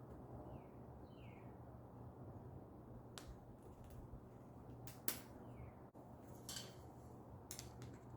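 Quiet room tone with a steady low hum, broken by a few scattered sharp clicks, the loudest about five seconds in, and a few faint short chirps.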